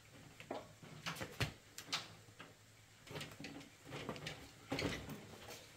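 Irregular light knocks and clicks of objects being handled, about a dozen in a few seconds, the loudest about a second and a half, two and five seconds in.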